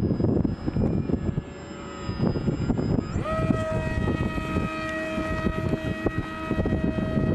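Strong wind buffeting the microphone, with the steady whine of a radio-controlled plane's motor and propeller. About three seconds in, a high thin whine gives way to a lower, fuller whine that holds steady.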